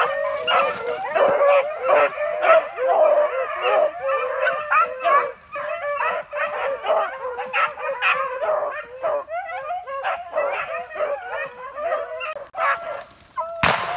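A pack of beagles baying over one another, many hounds calling at once while running a rabbit. A single sharp crack sounds near the end.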